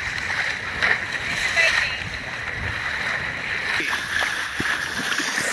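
Steady rushing and splashing of the bow wave along a sailing boat's hull as it moves through the water.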